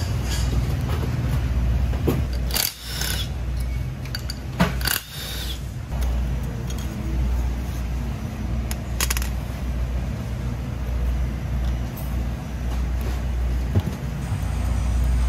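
Metal tools and engine parts clinking and clattering a few times as a mechanic works on a dirt bike's clutch, over a steady low rumble.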